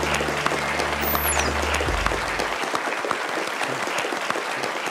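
Audience applauding, a dense continuous patter of clapping, over a low held music tone that cuts out about two and a half seconds in.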